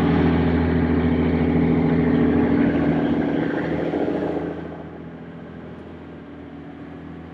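Sport-fishing boat's engine running steadily under a rush of wind and water. The sound drops to a lower level about four and a half seconds in.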